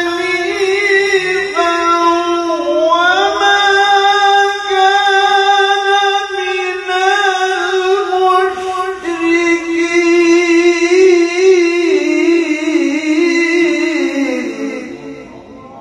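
Quranic recitation (tilawah) chanted by a single high voice in one long, ornamented melismatic line with a wavering pitch that climbs a few seconds in. It fades out near the end.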